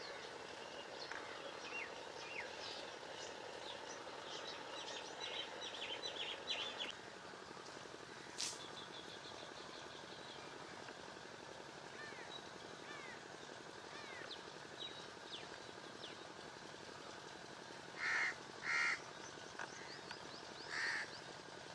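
Birds calling in the trees: scattered short chirps, a quick run of chirps about six seconds in, and three louder calls near the end. There is a single brief click about eight seconds in.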